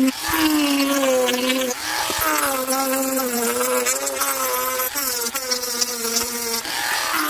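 Dremel rotary tool with a small sanding drum sanding dried papier-mâché, its motor whining steadily with the pitch wavering and dipping as it works the surface.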